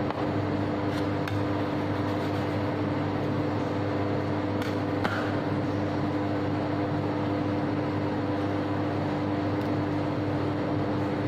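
Steady machine hum with a constant low tone and no change in level, with a few faint light taps and clicks from dough being cut and set down on a metal baking tray.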